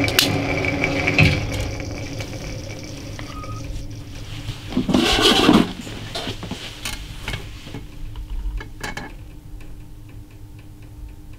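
A single sharp crack of a Chiappa Little Badger single-shot .22 LR rifle near the start, followed by a knock about a second later. About five seconds in comes a second-long rustling noise, then a few light clicks of handling.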